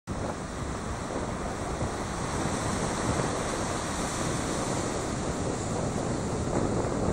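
Steady rush of surf breaking on granite shore rocks, with wind buffeting the phone's microphone.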